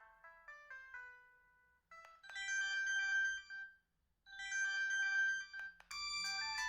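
Binatone BB200 mobile phone playing ringtone previews through its small speaker, one melody after another. A quick run of electronic notes fades out, then after a click a louder tune with held notes plays twice over, and a fuller tune starts near the end.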